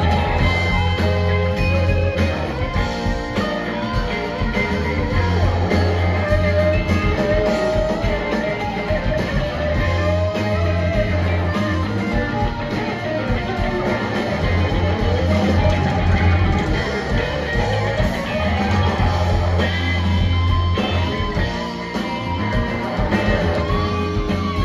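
Live rock band playing: electric guitars with wavering, bending lead lines over bass and drums.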